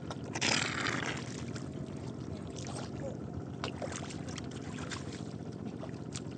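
Water splashing once about half a second in, then a few small splashes and clicks, over a steady low rumble.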